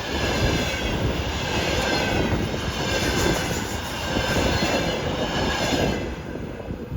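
A train passing on the rails, with the rumble of its wheels and a high wheel squeal over it. The sound dies away near the end.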